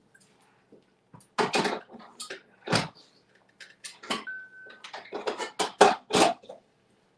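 Kitchenware being handled: a string of irregular sharp knocks and clinks, like bowls and utensils set down on a counter, with a short steady beep about four seconds in.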